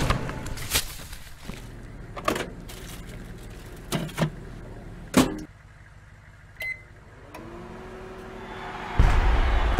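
Clicks and clunks as a microwave oven is worked, a short single keypad beep, then the oven starting up with a steady hum. Near the end a loud rush of noise cuts in suddenly.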